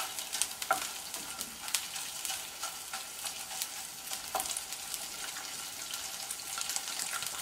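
Fish livers sizzling and crackling in a non-stick frying pan as the oil comes out of them, stirred around with a wooden spatula. A steady hiss with frequent small pops and a few sharper crackles.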